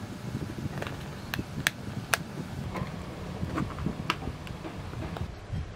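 Sharp small clicks and taps from a circuit board and metal tweezers being handled on a wooden desk, about half a dozen spaced irregularly, over a low steady background rumble.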